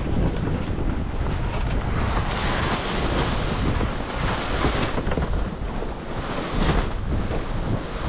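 Strong wind buffeting the microphone over the rush of water along a sailboat's hull, with surges of hiss as waves wash past, about midway and again near the end.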